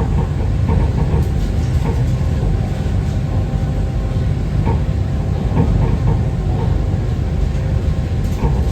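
Pink Line monorail train running between stations, heard from inside the car: a steady low rumble with light, irregular clicks.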